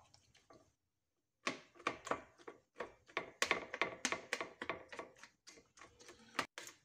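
Two metal spoons clinking and scraping against a stainless steel platter while the flesh of a baked sea bream is worked off the bone. After a quiet start, a quick, irregular run of taps with a slight metallic ring begins about a second and a half in.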